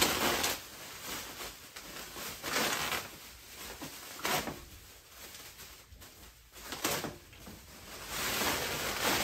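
Clear plastic packaging wrap rustling and crinkling as it is pulled off by hand, in several short irregular spells.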